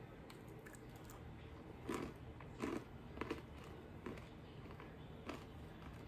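Faint crunching as a person chews a crunchy almond and sunflower seed cluster, about five crunches spread over several seconds.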